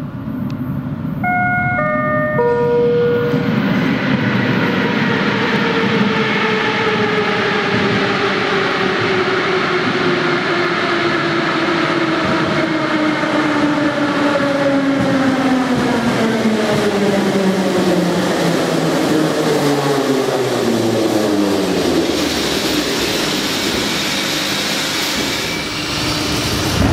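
Moscow Metro 81-717/714-type train pulling into a station: the traction motors' whine falls steadily in pitch as the train brakes over about twenty seconds, over the rumble of wheels on rails, until it comes to a stop near the end. About a second in, a short series of tones steps down in pitch.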